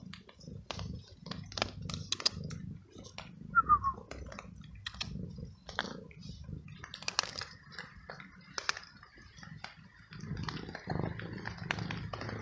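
Young tabby cat crunching dry kibble off paving stones: a run of quick, irregular crunches, with one short, falling mew a little under four seconds in.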